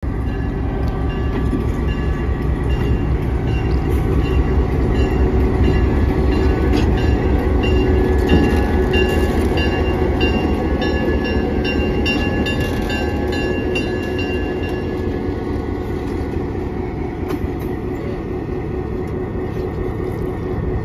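EMD GP9 diesel-electric locomotive's two-stroke V16 engine running as the unit moves slowly past at close range, loudest a few seconds in. Light clicking from the wheels crossing the rail joints and switch comes through in the middle.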